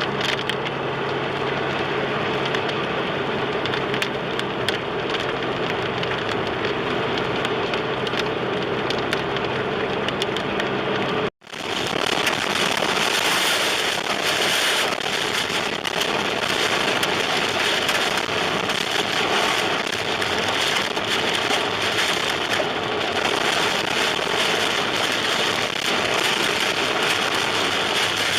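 Heavy rain pouring steadily, with many scattered sharp ticks of drops striking. A low steady hum runs under the first stretch; about eleven seconds in the sound cuts out briefly and resumes as a brighter, harder rain.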